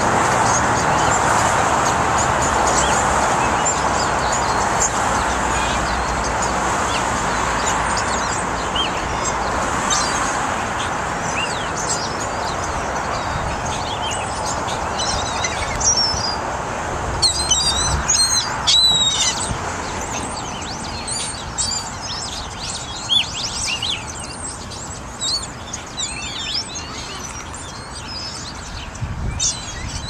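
A flock of birds calling, many short squealing and chirping calls that thicken past the middle, over a steady rushing background noise that slowly fades.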